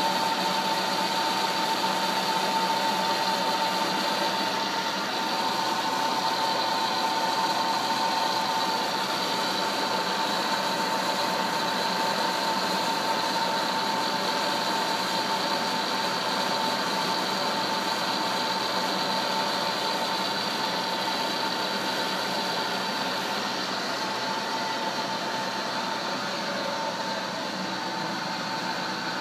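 Lilian SBM-5V CNC turret milling machine running a program: a steady machine hum with a steady high whine, easing off slightly near the end.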